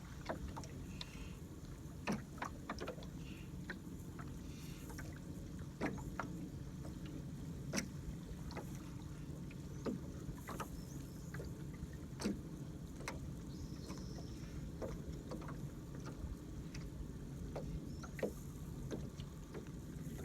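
Water lapping against a small boat's hull: a steady low rumble with scattered sharp clicks and knocks every second or two.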